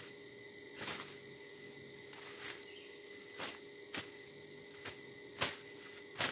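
Irregular short strokes of weeds being cut and cleared by hand, about seven in six seconds, over a steady high drone of insects.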